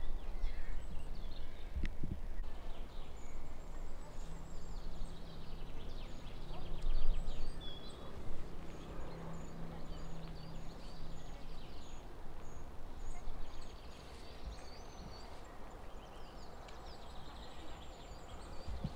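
Footsteps of a hiker walking a woodland path, with wind on the microphone, and a faint high call repeating about twice a second in the background.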